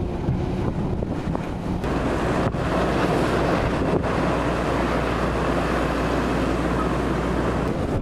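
Typhoon gale buffeting the microphone in a heavy, steady rumble, over waves breaking against the harbour quay and wind-driven rain. The low rumble grows stronger about two seconds in.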